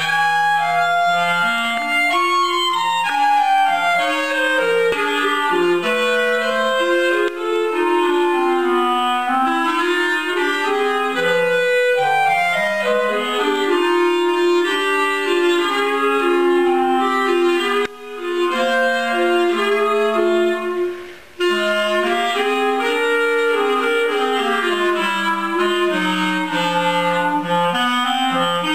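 Two clarinets playing a duet, two melodic lines moving together, with two short breaks in the sound about two-thirds of the way through.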